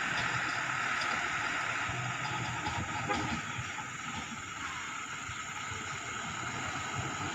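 Diesel engine of a loaded light dump truck running steadily at low revs, with a steady hiss over it.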